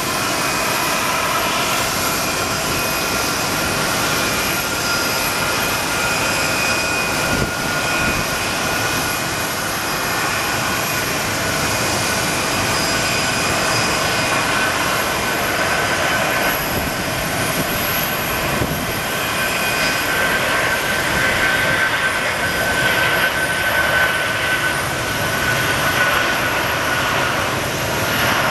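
Airbus A340-600's four Rolls-Royce Trent 500 turbofans running at power on the takeoff roll: a steady jet rush with a high whine that edges up in pitch partway through.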